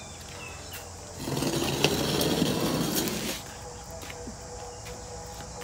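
A loud rustling, scraping noise lasting about two seconds, starting about a second in, over a faint outdoor background with a few short bird chirps at the start.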